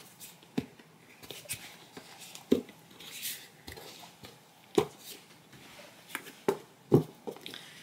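Irregular plastic clicks and knocks, about eight or nine of them, as a 3-in-1 plastic cutting board, dish pan and collapsible bowl is handled and its collapsible parts are pushed into place, with a brief rustle about three seconds in.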